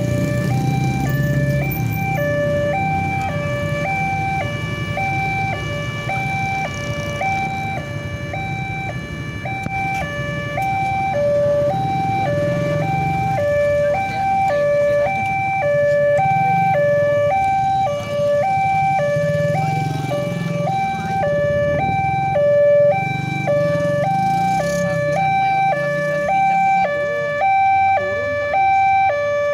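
Railway level-crossing warning alarm sounding: an electronic signal alternating steadily between a high and a low note, the signal that a train is approaching and the barriers are down. Waiting road traffic's engines rumble underneath.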